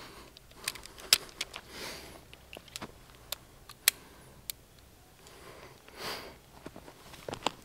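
Scattered sharp metallic clicks and light handling noise of a .357 Magnum revolver being loaded and readied to fire, mostly in the first half.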